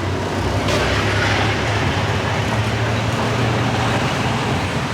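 Road traffic noise with a vehicle engine running close by, giving a steady low hum that fades about four seconds in.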